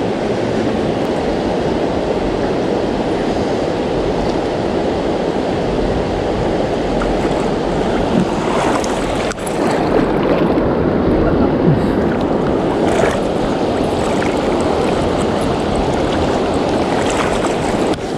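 Fast river current rushing steadily over stones.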